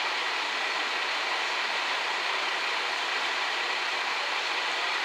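JR Shikoku 2700 series diesel railcar train running slowly through a curve and pointwork: its engines and wheels make a steady, even noise.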